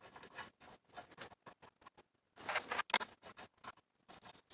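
Quick, irregular light clicks and taps of bolts and hands working on a Yamaha TW200's engine side cover as the cover bolts are fitted finger tight, with a denser run of clicks about two and a half seconds in.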